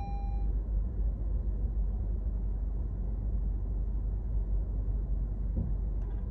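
Steady low rumble of road and engine noise inside a moving car's cabin. A steady electronic beep cuts off about half a second in.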